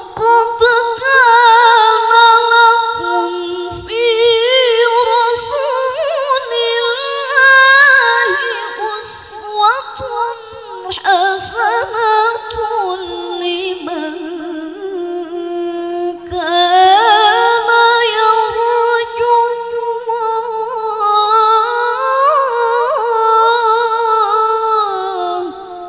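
A woman's voice reciting the Qur'an in the melodic tilawah style into a handheld microphone: long held phrases with wavering, ornamented runs, sinking to a falling close near the end.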